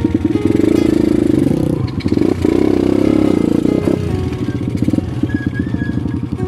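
Dirt bike engine working up a steep, muddy trail, its pitch rising and falling with the throttle. Background music plays underneath.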